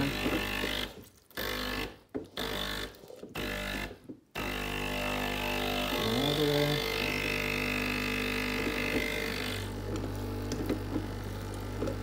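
Gastroback (Breville Barista-type) espresso machine's vibratory pump running a single-shot flush through the group head. It cuts in and out about once a second for the first four seconds, the pulsed pre-infusion stage, then runs steadily.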